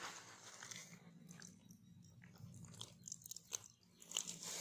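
Faint crinkling and rustling of a plastic curd pouch being handled and squeezed, with scattered small clicks and a louder burst of crinkling near the end.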